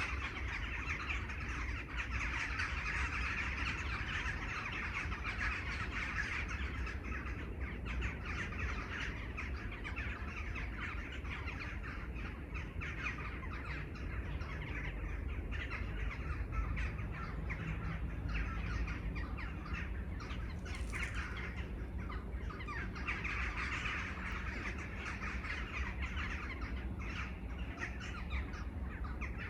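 A chorus of many crows cawing over and over, dense and continuous, with smaller birds chirping among them and a steady low rumble underneath.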